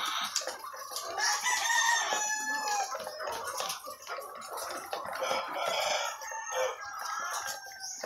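A flock of caged laying hens clucking and calling, many birds at once, with a longer drawn-out call from about one to three seconds in.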